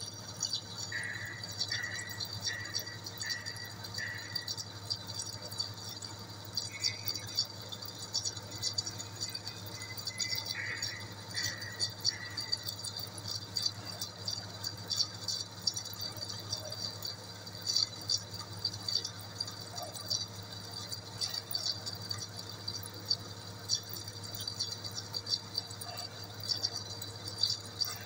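Centre lathe turning a metal shaft while the tool takes a cut: a steady motor and gearbox hum under a dense crackling rattle from the cut, with brief high squeaks now and then in the first half.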